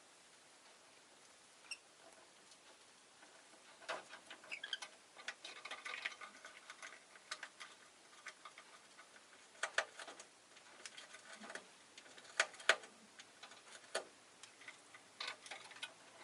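Rosy-faced lovebird making scattered clicks and taps, with a few short, soft chirps.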